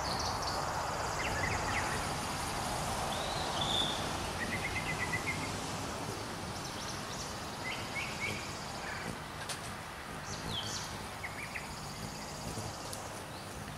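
Several wild birds chirping in short, scattered phrases, with a steady high-pitched insect drone and an even outdoor hiss underneath.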